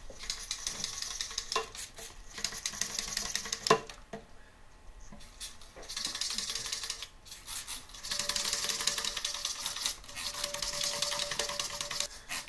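Nylon engine-cleaning brush scrubbing inside the fuel injector holes of an intake manifold, wet with alcohol, in scratchy stretches of a few seconds. A few sharp knocks come through, the loudest about four seconds in.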